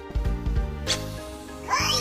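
Background music with a steady beat and held notes; near the end a high, bouncing voice begins.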